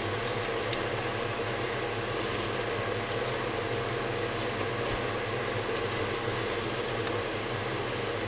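A steady mechanical hum, with faint light scrapes and clicks from a spatula stirring sugar-coated hazelnuts in a stainless steel saucepan.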